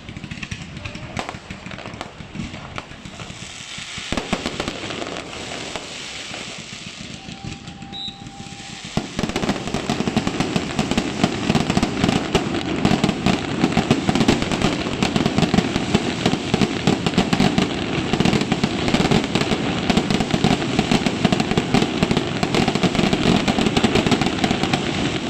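Fireworks going off close by in rapid, crackling pops, sparse at first and then, about nine seconds in, suddenly much louder and denser, a continuous crackle of many small bangs.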